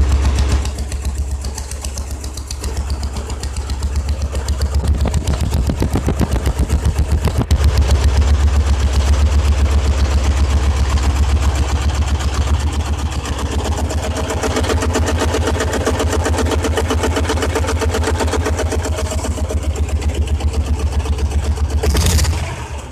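Exhaust of an old diesel Royal Enfield Bullet's single-cylinder engine running with a fast, even beat, getting louder between about four and eight seconds in. It dips briefly near the end.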